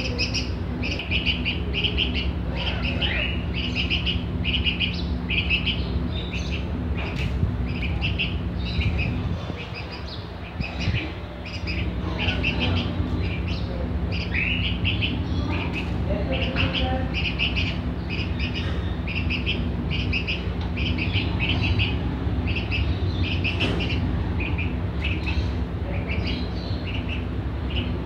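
A young hand-reared bulbul chirping over and over in short, high, quick runs about every second, the begging calls of a chick that wants to be fed. A steady low hum runs underneath.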